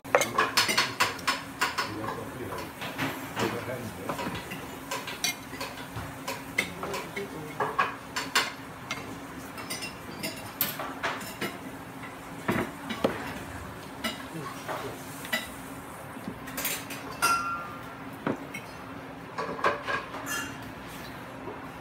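Metal pans and utensils clinking and clattering on a commercial gas range as a chef works, in a quick run of knocks near the start and then scattered clinks, over a steady low hum. About three-quarters of the way through a short ringing tone sounds.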